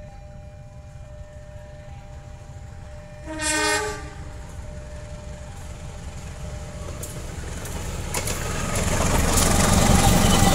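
KAI CC203-class diesel-electric locomotive gives one short horn blast about a third of the way in, then comes up and passes close by. Its engine rumble and the wheel and rail noise of the train grow steadily louder, with a few clicks from the rails near the end.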